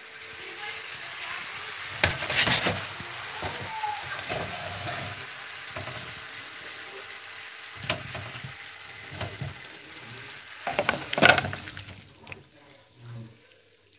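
Pineapple pieces sizzling in a butter-and-sugar caramel in a hot frying pan, with a spatula scraping and knocking against the pan now and then. The sizzle dies down in the second half, and the loudest scraping comes near the end as the pieces are tipped out of the pan.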